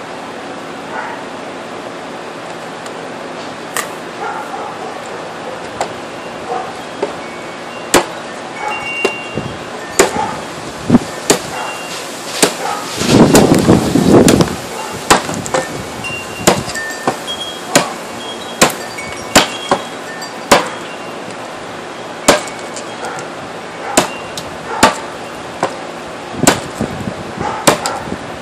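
Shawn Hatcher custom cleaver chopping into the edge of a wooden board: sharp single knocks at irregular intervals, starting a few seconds in, with a louder, denser flurry about halfway through.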